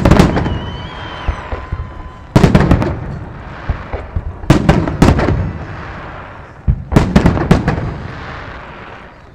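Fireworks display: aerial shells bursting overhead in volleys of sharp bangs every two seconds or so, each volley followed by a rolling rumble that dies away.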